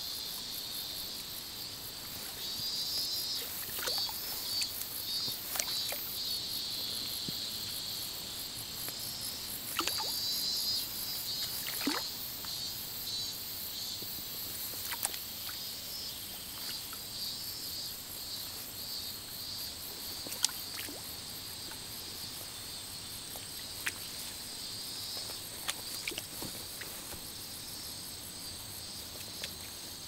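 A chorus of insects chirping in pulsing bursts, with a steadier high hiss beneath. A few sharp clicks stand out now and then.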